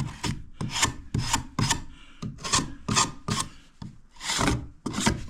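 A plasterboard offcut is scraped back and forth over the edges of a socket back box, rubbing gypsum onto them. It makes quick rasping strokes at about three a second, with a brief pause about two seconds in and one longer stroke near the end.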